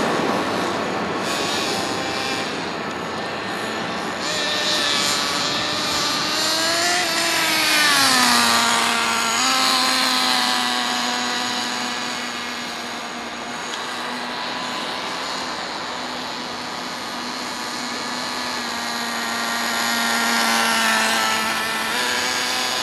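A 1:10-scale Fazer RC car's motor revving as it drives. Its pitch rises and falls about a third of the way in, then holds nearly steady for a long stretch and climbs again near the end.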